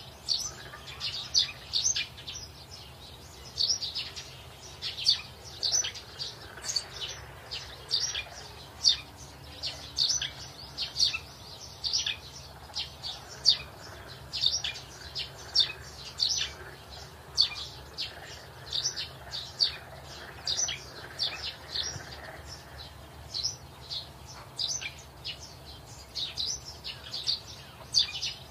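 A group of mongooses giving rapid, high-pitched alarm chirps, several a second in an irregular, unbroken series, as they mob a leopard.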